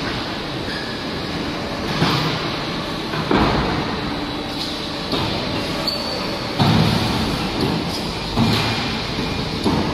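Automatic concrete block making machine running: a steady mechanical noise with a sudden louder surge every one and a half to two seconds, some of them with a deep rumble.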